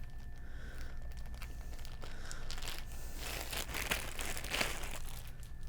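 Plastic packaging crinkling and rustling in irregular crackles as accessories such as the power cord are unwrapped and handled.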